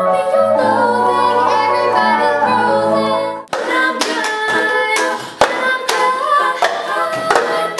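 Young women's vocal group singing in close harmony over an acoustic guitar, holding a high note (an E5). About three and a half seconds in it cuts to the group singing a cappella over a beat of hand claps and plastic cups struck on a wooden table.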